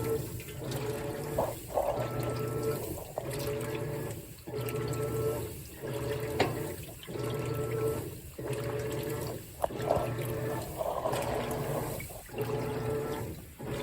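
Whirlpool WTW4815EW1 top-load washer agitating: the motor hums and the water sloshes in even strokes, with a short pause about every 1.3 seconds as the single-action agitator drives the wash.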